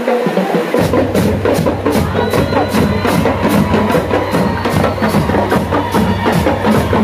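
School marching band percussion section playing a driving beat on snare drums, bass drums and cymbals, the full drumming coming in about a second in.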